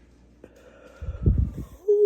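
A woman's breath: a few hard, rough huffs blasting the microphone, then near the end a short hummed 'mm' that slides slightly down in pitch.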